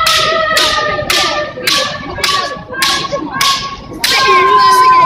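Kendo bamboo swords (shinai) striking in a regular run, about two hits a second, under a long, high-pitched kiai shout that is held throughout and swells about four seconds in.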